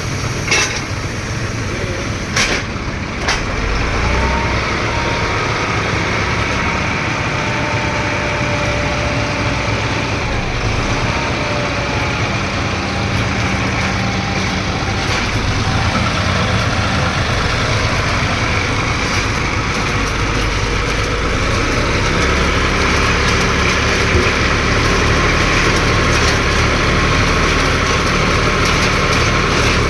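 Ground-drilling rig running steadily, its engine and drilling machinery making a continuous heavy hum, with a few sharp knocks in the first few seconds and the level rising slightly after about four seconds.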